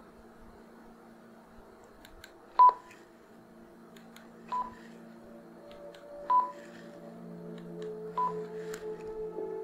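Entel DX585M-IS handheld two-way radios giving short single beeps, four in all, about two seconds apart, the first the loudest, while the radios are checked channel by channel. A faint low hum underneath grows louder in the second half.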